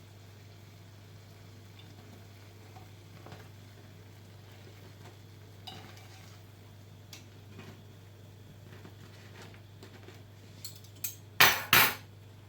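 Dishes and kitchen utensils knocking and clinking now and then over a steady low hum, ending in a few sharp clinks and then two loud clatters close together near the end.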